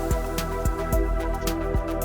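Electronic background music with a steady beat and held synth chords.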